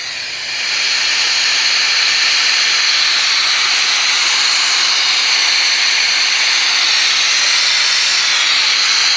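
Nitrogen at about 300 PSI blowing through an air-conditioning copper line set, a loud steady hiss that swells up in the first second, purging the leftover R-141b flushing solvent out of the pipes.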